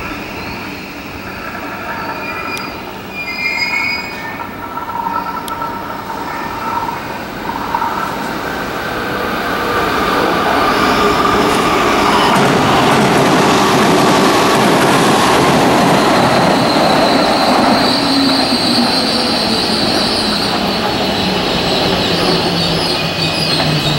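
Tobu 350 series limited express electric train passing through a station without stopping. The rush of wheels on rail builds from about ten seconds in to a steady loud run with high wheel squeal, then eases a little near the end as the train draws away.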